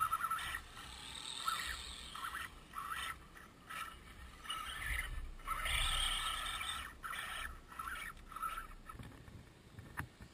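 Axial Wraith radio-controlled crawler's electric motor and gears whining in short, uneven throttle bursts as it climbs a steep dirt and rock slope. A single sharp click comes near the end.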